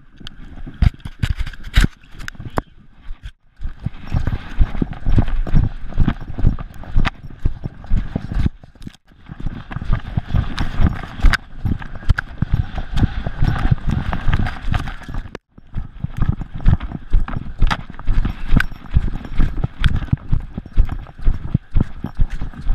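Gordon Setter running through shallow water and over wet sand, heard from a camera on her collar: a fast, uneven patter of paw thuds and splashes, with the collar camera knocking and jostling. It breaks off briefly three times.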